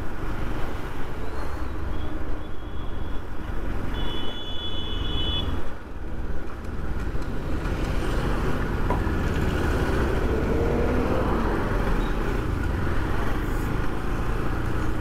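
Motorcycle ride through road traffic: steady wind rush over the microphone and the engine running. A brief high-pitched tone, like a vehicle horn, sounds about four seconds in.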